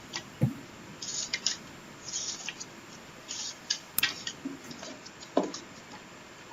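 Pages of a book being leafed through: short papery rustles about a second apart, with a sharp click about four seconds in and a few small knocks.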